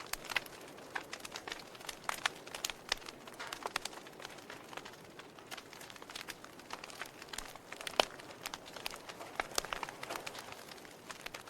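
Wood fire crackling in a fireplace: irregular sharp pops and snaps over a soft steady hiss, with one louder pop about eight seconds in.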